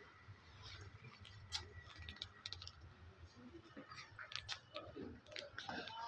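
Quiet background with faint, irregular clicks and taps, and faint voices near the end.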